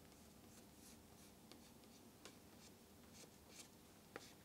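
Near silence, with faint, irregular scratchy strokes of a cloth being rubbed over wet protective film on a bike frame to work out water and bubbles. A small click comes near the end.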